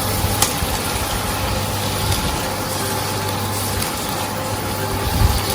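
Butter melting into a simmering lemon-butter sauce in a hot pan: a steady sizzling hiss over a low steady hum, with one light click about half a second in.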